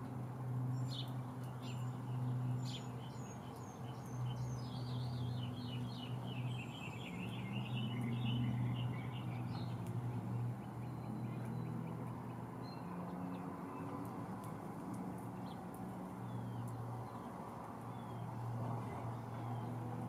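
A small songbird sings a quick twittering run of short high notes that step down in pitch over about five seconds, followed by a few scattered chirps. Under it runs a steady low hum.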